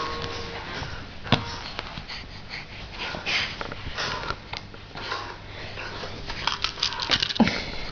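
A child hiccupping: short, sudden breathy catches, one about a second in and a quick run of them near the end.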